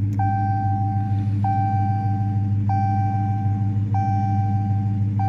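Dodge Challenger R/T's dashboard warning chime sounding five times, one ringing tone about every second and a quarter, just after a click of the start button. Under it runs the steady low rumble of the idling Hemi V8.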